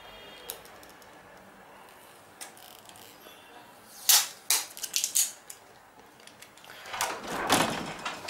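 Clear plastic iPod touch box being opened by hand: quiet at first, then several sharp plastic clicks and crackles about four to five seconds in, and a longer scraping slide near the end as the lid is worked off its base.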